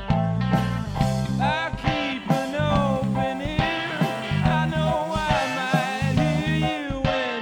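Background rock music with a steady beat, bass and guitar, and a sung or lead melody line entering about a second and a half in.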